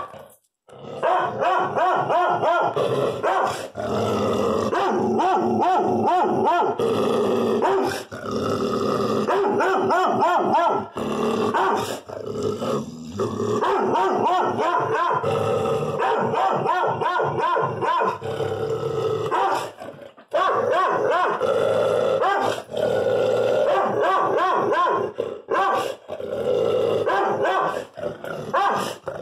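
A dog barking and growling at a black bear, almost without pause, in long runs broken by a few short gaps.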